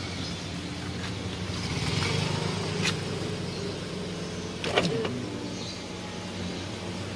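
Ford Escape's electric power window motor running as the door glass is moved, over the steady hum of the idling engine. There is a click at about three seconds and a sharp knock at about five seconds.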